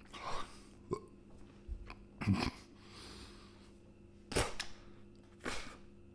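A man gagging and retching on a mouthful of tripe: about four short heaves one to two seconds apart, an involuntary gag reflex at the food's texture.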